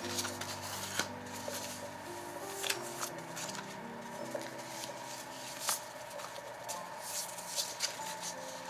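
Paper rustling and flicking as stiff vintage paper cards and sticker sheets are leafed through, pulled from a box and fanned in the hands, with many short crisp snaps. Soft background music of held notes plays underneath.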